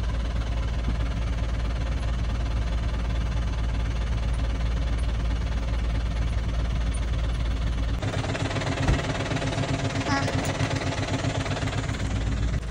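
Engine and drivetrain drone inside a 4x4's cab, with the body jolting over a rough rocky track. About eight seconds in, the sound cuts to a different clip with a throbbing, pulsing engine.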